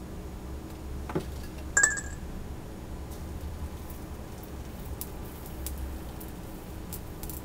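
Low steady hum of running soldering-bench equipment, with a faint click about a second in and a short high-pitched chirp about two seconds in.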